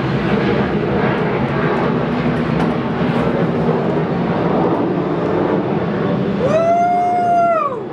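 Steady loud drone of a helicopter flying overhead. Near the end, a single long pitched tone rises, holds for about a second and falls away.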